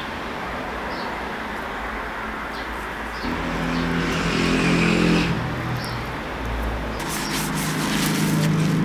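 A motor vehicle's engine humming steadily, growing louder about three seconds in and again near the end. Small high chirps now and then, and a paper towel crackles during the last two seconds.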